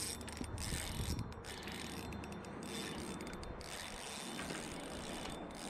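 Spinning reel being cranked steadily with a hooked bass on the line, its gears and rotor turning under load.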